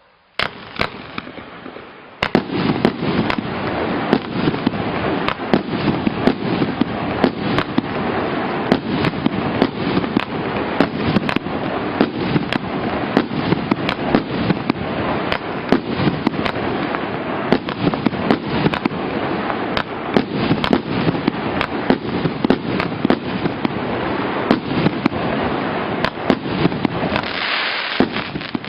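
A 49-shot fireworks cake of 1.5-inch tubes firing in quick succession: a continuous string of sharp bangs over a dense, steady rush of noise. It starts lighter and fills out about two seconds in.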